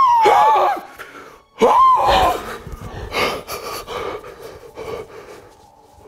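A man's high-pitched screams of fright: one cry ending just under a second in, then a second short cry about a second and a half in, followed by quick gasping breaths that die away.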